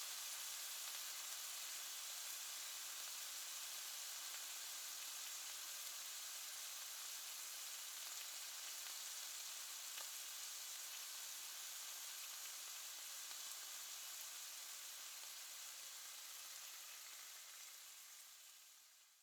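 Meat sizzling and frying in a pan: a steady, dense hiss with a faint pop now and then, fading out over the last couple of seconds.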